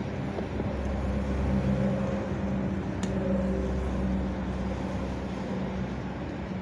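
Steady hum of road traffic, a low engine drone from passing vehicles, with a single sharp click about three seconds in.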